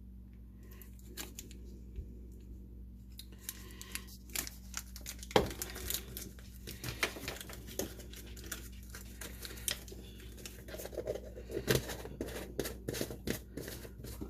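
Plastic bag of vitamin powder crinkling and rustling as it is handled, with scattered small clicks and taps and one sharper knock about five seconds in.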